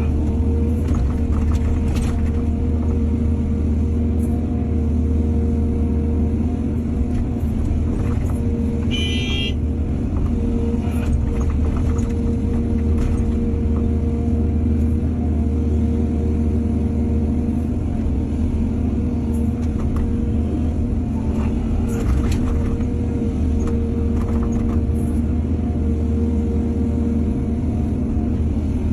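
Excavator's diesel engine running steadily, with scattered short knocks and clatter over the drone. A brief high-pitched squeal comes about nine seconds in.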